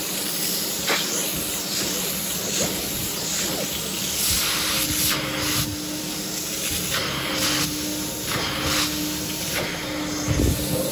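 Portable hot-water carpet extraction machine with a three-stage vacuum, hissing steadily as it sucks through the upholstery hose. From about halfway, a few brighter rushing spells come as the clear upholstery tool is drawn across the cotton sectional fabric, spraying and extracting.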